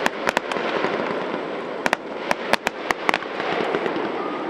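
Fireworks going off in a dense run: many sharp cracks and pops, several close together, over a constant noisy wash.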